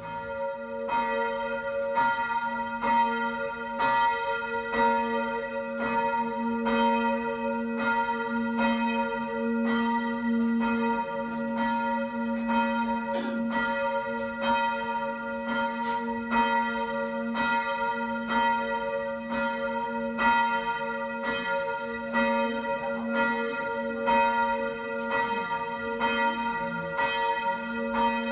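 A church bell tolling steadily, about one stroke a second, each stroke ringing on into the next: a funeral toll.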